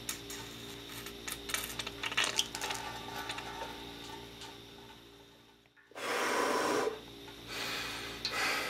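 Bench-bleeding a replacement Ford F-150 brake master cylinder, with gloved fingers over the outlet ports as the piston is stroked. It gives wet rubbing and small clicks, then two louder hissing rushes about a second each near the end.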